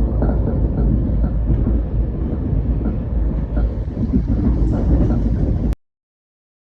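Train running on the rails: a loud, steady rumble with faint regular ticks over it. It cuts off abruptly to silence about a second before the end.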